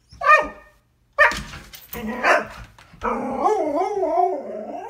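A husky vocalizing in protest at the door: a short call, a couple of harsh barks, then a long wavering howl whose pitch goes up and down, starting about three seconds in and lasting nearly two seconds.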